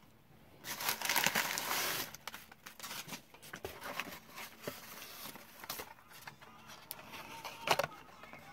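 Tissue packing paper rustling and crinkling as it is handled and unwrapped by hand, loudest about a second in, with a sharp click near the end.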